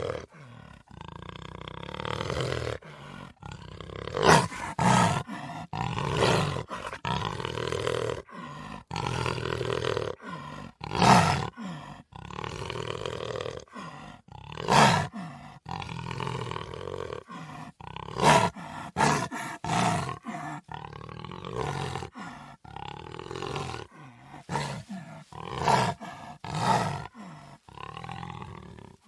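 Puma (cougar) vocalizing repeatedly: drawn-out pitched calls broken by many brief silences, with sudden short, much louder calls about four, five, eleven, fifteen, eighteen and twenty-five to twenty-seven seconds in.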